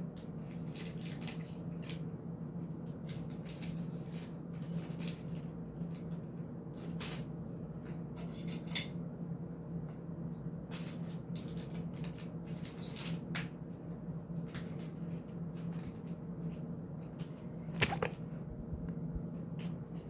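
Small metal quick-release camera-mount parts handled by hand, giving scattered clicks and clinks, the sharpest pair about 18 seconds in. A steady low hum runs underneath.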